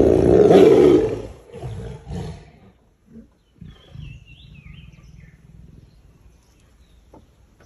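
A big cat's rasping roar, loudest in the first second, trailing off in two or three softer grunts by about two and a half seconds. A bird calls briefly about four seconds in.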